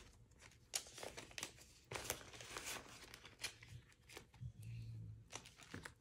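Paper bills and plastic cash-envelope pockets rustling and crinkling as they are handled, with a few light clicks.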